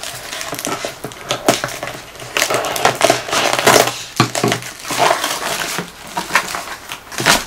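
Cardboard shipping box being pulled open by hand: irregular tearing, scraping and crackling of cardboard flaps and packing, with many short sharp clicks.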